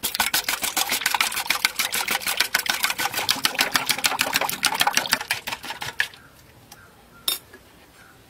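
Eggs being beaten fast by hand with a metal utensil in a bowl: rapid, even clicking at about nine strokes a second, stopping about six seconds in. A single sharp knock comes a second later.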